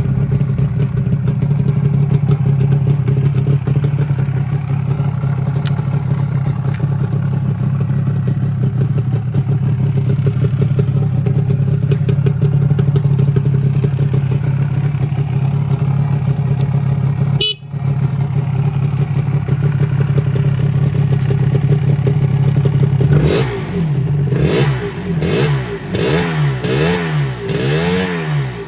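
Suzuki RG250Γ's two-stroke parallel-twin engine idling steadily, then revved with several quick throttle blips in a row near the end, the pitch rising and falling each time.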